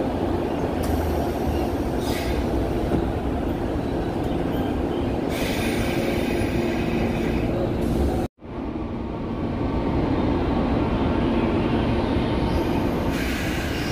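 JNR 185 series train running slowly past a station platform, heard through an open window: a steady rumble of wheels and running gear with a low hum and a higher hiss that comes and goes. The sound cuts out abruptly for a moment about eight seconds in, then fades back in.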